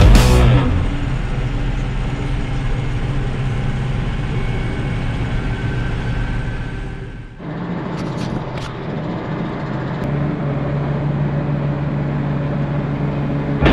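Tractor engine running steadily while driving, heard from inside the cab. After a sudden cut about halfway, a steady engine idle follows, with a few faint ticks shortly after the change.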